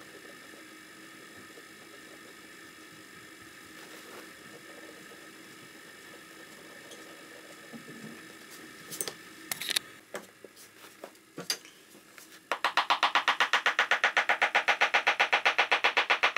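A small hammer tapping rapidly and evenly on the leather toe of a Chelsea boot, several light blows a second, starting suddenly near the end after a few scattered handling clicks.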